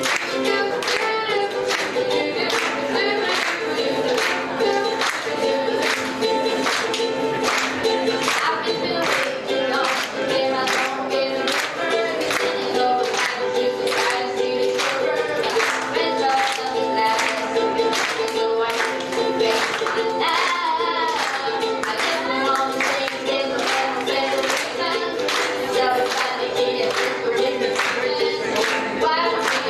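Live ukulele strummed in a steady rhythm, with a voice singing along into a microphone.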